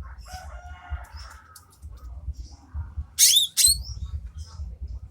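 Green leafbird (cucak ijo) giving a loud call a little past three seconds in: two sharp, high notes with quick sweeping pitch. A rooster crows faintly near the start.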